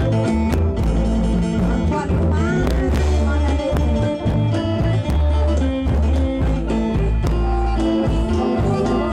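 Live folk ensemble music: khaen (bamboo mouth organs) playing sustained chords over a steady drum beat with frequent sharp percussion hits.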